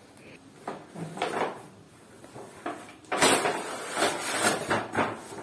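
A cardboard doll box being handled and pulled apart: short scrapes and rustles of cardboard, becoming louder and nearly continuous from about three seconds in as the long cardboard insert is drawn out.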